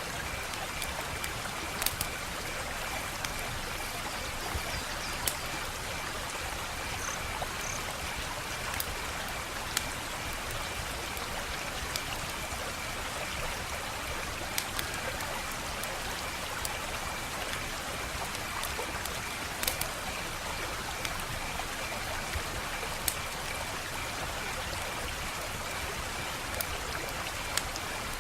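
Wood fire crackling: a steady hiss with scattered sharp snaps and pops. The louder snaps come about two, ten, twenty and twenty-six seconds in. A faint, evenly pulsing high tone runs underneath.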